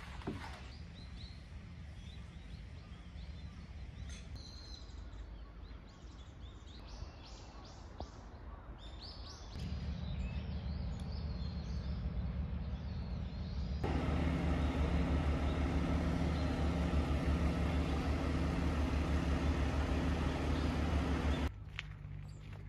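Outdoor ambience with birds chirping, then a steady machine-like hum with a fixed pitch that comes in about ten seconds in, grows much louder a few seconds later and stops abruptly near the end.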